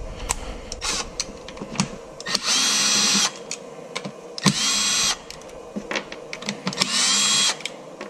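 Cordless drill-driver with a Torx T20 bit backing out the screws that hold the door-handle motor: three short runs of the motor whine, each rising in pitch as it spins up and then holding steady, with small clicks of handling between them.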